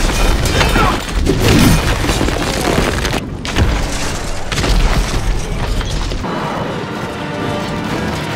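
Movie battle soundtrack: heavy booms and crashes over film score music, broken by a brief drop-out about three seconds in. From about six seconds in the impacts stop and the music carries on alone.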